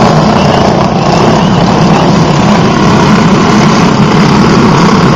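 A pack of dirt-track racing go-karts running together at speed, a loud, steady engine drone.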